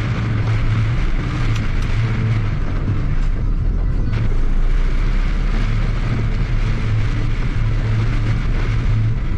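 A car driving through a torrential downpour, heard from inside the cabin: a steady hiss of heavy rain and wet tyres over a low engine and road drone.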